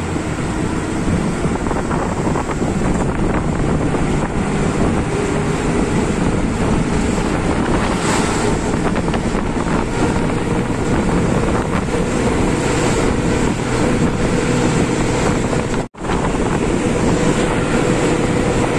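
A motor running steadily under heavy wind buffeting on the microphone, with a momentary cut in the sound near the end.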